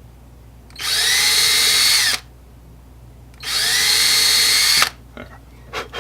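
Small power drill boring pilot holes for hinge screws into cherry wood: two short runs, each spinning up and holding steady for about a second and a half. A few light clicks near the end.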